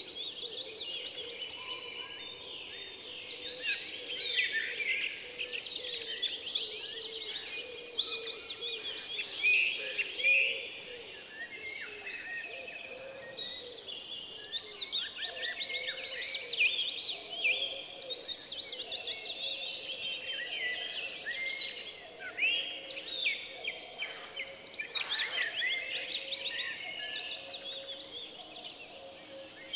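Small birds chirping and twittering without a break, in quick runs of trilling calls, loudest about six to ten seconds in.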